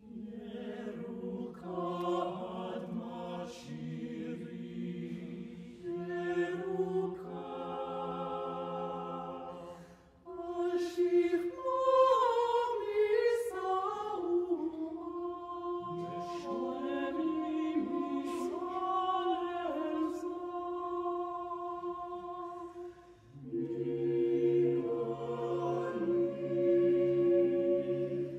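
Choir singing a cappella, several voice parts holding sustained chords that move in steps. The singing breaks off briefly about ten seconds in, comes back louder, and pauses again shortly before a final held chord.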